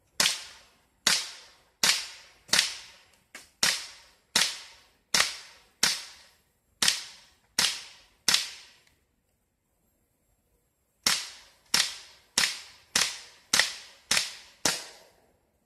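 Colt Defender CO2 BB pistol firing: about a dozen sharp cracks at a steady pace of a little over one a second, each trailing off quickly, then a pause of about two seconds and seven more shots in quicker succession.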